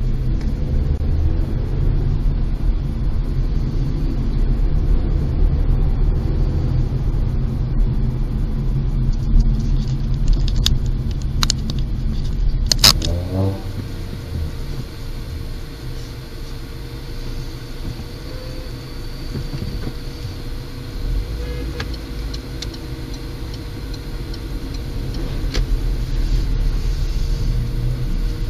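Low road and engine rumble inside a moving car, picked up by a dashcam. About halfway through, after a sharp click, the rumble drops to a quieter steady hum as the car stands idling in traffic.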